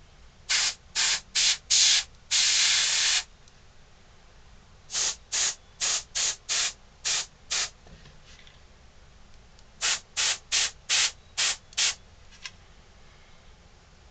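Airbrush spraying paint in short hissing bursts, a quick run of four, one longer hiss of about a second, then two more runs of six or seven, with pauses between: dabbing black spots onto a carved dog figure.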